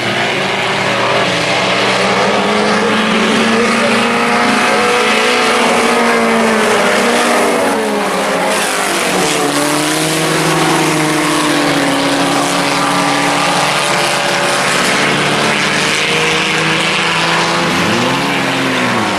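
Several four-cylinder Sport Compact race cars running at speed, their engine notes overlapping and rising and falling as they accelerate and lift. Near the end one engine's pitch dips and climbs again as a car passes close by.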